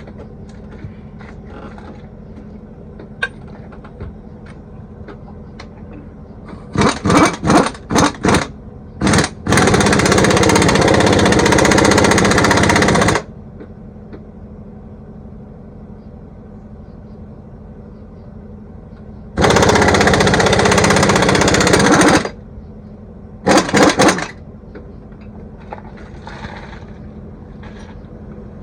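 Impact wrench hammering in bursts over a steady engine idle, working the fasteners of a truck driveshaft. It starts with a few short trigger pulls, then runs twice for about three to four seconds at a time, with a few more short pulls near the end.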